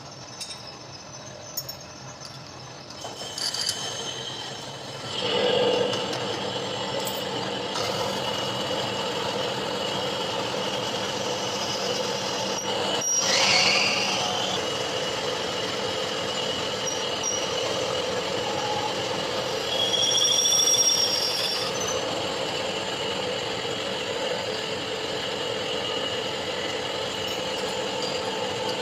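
A machine tool cutting metal: a few clicks, then about five seconds in the cut starts and runs steadily with a high, ringing squeal that swells twice.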